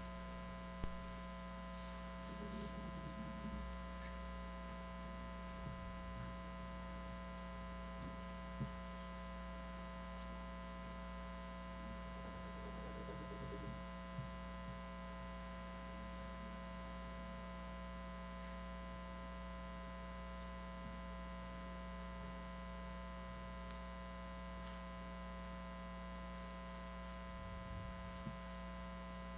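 Steady electrical mains hum on the sound feed, a set of unchanging tones with only a few faint, brief disturbances.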